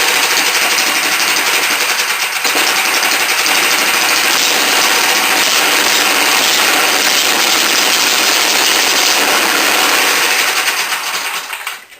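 Small go-kart engine running steadily and loudly, then dying away just before the end. It runs now that a wire grounding itself out on the engine base has been cut free.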